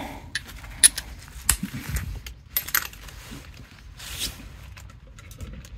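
Scattered sharp metallic clinks and taps as a spark plug wrench and socket are handled, the loudest a little under a second in.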